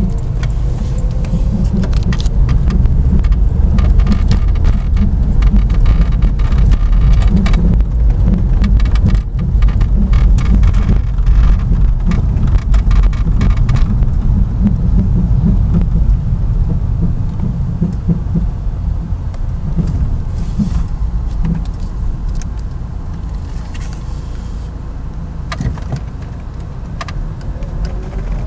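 A car being driven, heard from inside: a loud, steady low rumble of road and running gear, with many sharp clicks and rattles through the first half that thin out as it grows quieter near the end. It carries an annoying rubbing noise that the owner cannot identify.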